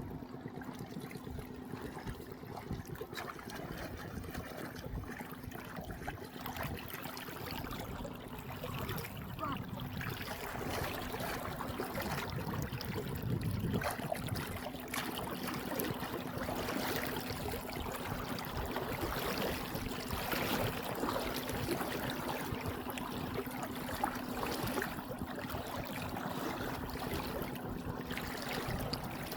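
Water trickling and splashing, over a steady low hum.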